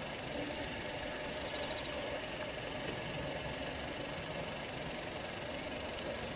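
Steady running noise of a vehicle: an even hiss with a few faint constant tones and no distinct impacts.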